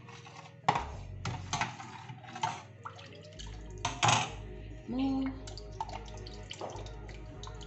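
A metal ladle stirring thin soup in a large stainless steel pot: liquid sloshing and splashing in short bursts, with light knocks of the ladle against the pot.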